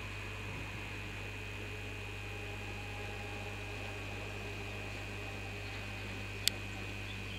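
Steady low hum and hiss with a faint, constant high-pitched whine, broken by a single sharp click about six and a half seconds in.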